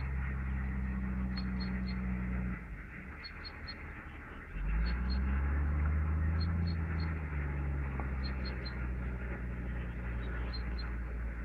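A low, steady engine hum that cuts out a couple of seconds in and comes back about two seconds later with a rising pitch. Over it, high short chirps come in threes about every second and a half.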